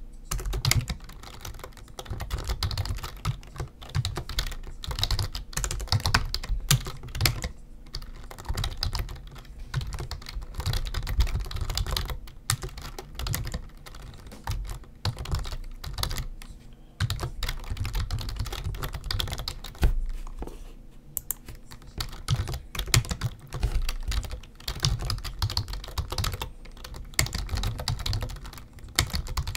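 Typing on a computer keyboard: quick runs of key clicks broken by short pauses every few seconds.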